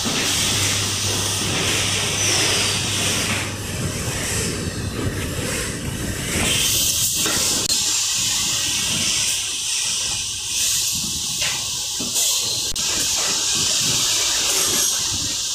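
Steady hissing factory-floor noise from assembly-line machinery, with a low hum for the first few seconds and a few faint knocks of parts being handled.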